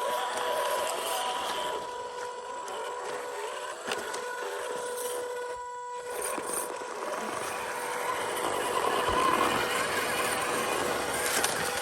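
The electric motor and gearbox of a 1/12-scale MN128 RC Jeep running, a steady whine over a whirring, grinding gear noise that drops out briefly about halfway through.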